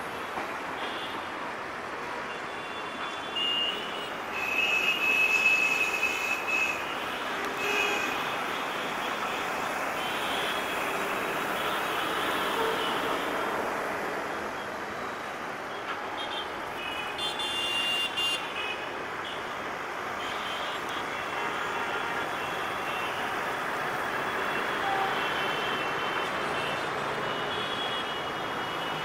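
Steady road traffic noise with vehicle horns tooting now and then, short high-pitched honks, the loudest a few seconds in.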